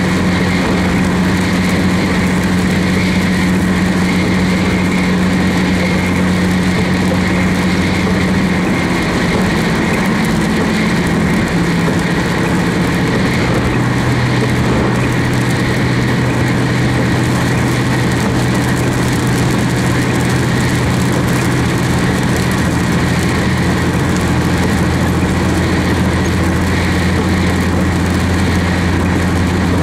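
Vehicle cabin sound while driving on a wet road: a steady engine drone under continuous tyre and road noise. The engine note steps lower about ten to twelve seconds in.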